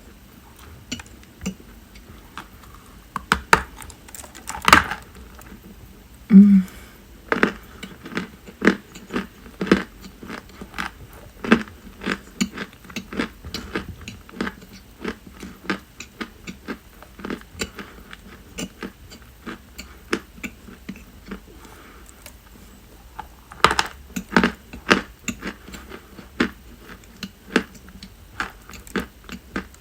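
Dry white chalk being bitten and chewed close to the microphone: crisp crunches, about one or two a second, bunching together around four seconds in and again near twenty-four seconds. The loudest crunch comes about six seconds in, with a brief low hum.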